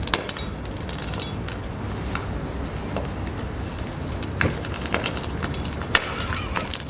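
Sodium reacting violently with water in a bucket: scattered sharp pops and crackles as the burning metal spits, over a steady low background noise.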